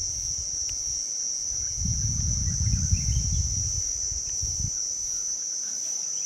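Insects droning steadily at a high pitch, with a low rumble for about three seconds in the middle.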